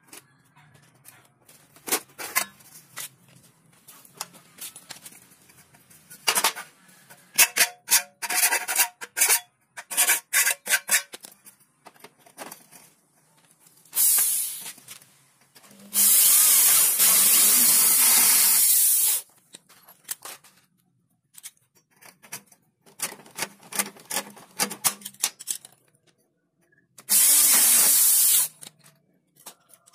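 Aluminum window-frame profiles clattering and knocking as they are handled and set in place, then a corded electric drill boring into the aluminum frame in three runs: a brief one, a steady run of about three seconds, and a shorter one near the end. These are holes for the rivets that join the frame.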